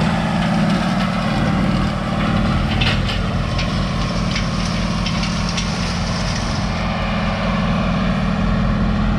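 Large diesel farm-machinery engine running at a steady speed, with a deep, even hum.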